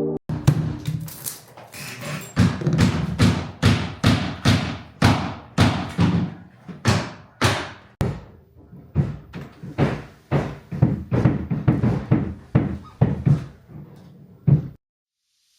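A steady run of thumps, about two a second, each with a short ringing tail, stopping abruptly near the end.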